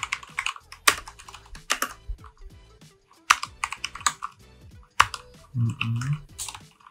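Typing on a computer keyboard: an irregular run of key clicks as a line of code is entered.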